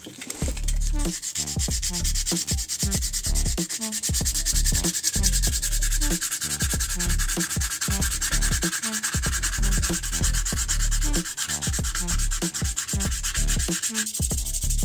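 Wooden knife handle being sanded by hand with coarse 80-grit sandpaper to shape it: quick back-and-forth rubbing strokes, about two a second, with a steady gritty hiss.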